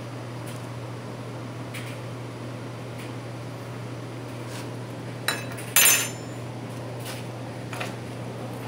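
Metal spoon clinking against a glass bowl twice, about half a second apart, the second the louder with a brief high ring, over a steady low hum.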